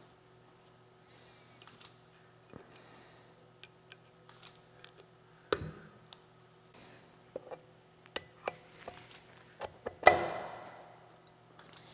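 Small metal engine parts clicking and clinking as gears and shafts are handled and set into an aluminium motorcycle crankcase half. There is a sharper clink about halfway through, and the loudest one, which rings on briefly, comes near the end.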